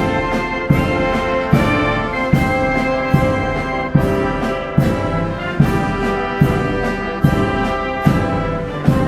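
Brass band music with sustained brass chords over a steady beat, a strong accent roughly every 0.8 seconds.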